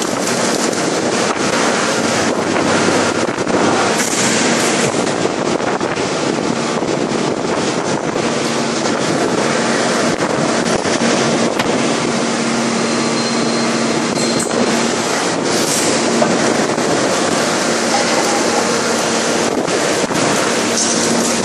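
Steady, loud mechanical roar of a 5000-ton hydraulic forging press in operation while it works a red-hot forging, with a faint hum and scattered sharp clicks and crackles throughout.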